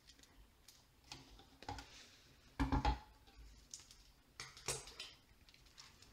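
A marker handled over paper on a desk: a scattered series of light clicks and taps, the loudest a quick pair near the middle.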